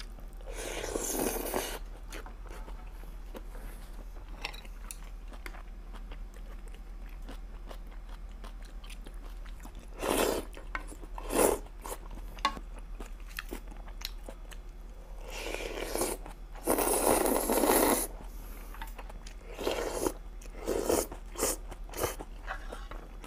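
A person eating Korean army stew (budae jjigae), slurping instant noodles and broth and chewing. There are several loud slurps of a second or two each, with quieter chewing between them.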